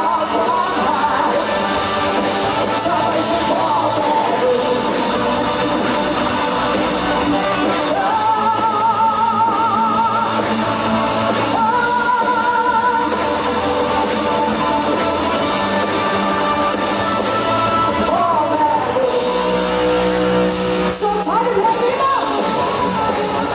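Live band playing a rock-style song: a woman singing lead into a microphone over electric guitar and keyboard, loud throughout.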